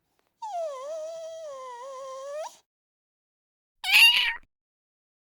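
A cat meowing: one long, drawn-out, wavering meow that rises at the end, then a short, louder meow about a second and a half later.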